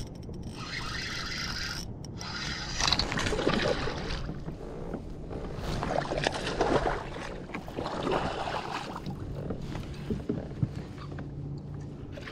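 Water splashing and sloshing beside a kayak as a hooked bass is fought close to the boat, in irregular bursts from about three seconds in, over a steady wind rumble on the microphone.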